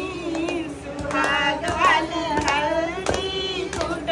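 A group of women singing a wedding song together, with sharp beats keeping time, several to the bar, throughout.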